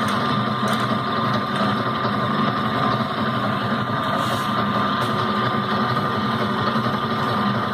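Electrically driven epicyclic gear train test rig running steadily: motor and gears giving an even mechanical hum with a thin constant whine.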